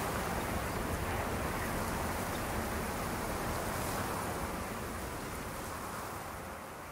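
A steady, even rushing noise with no tones or voice in it, like a wind or surf sound effect under an animated intro, slowly fading out near the end.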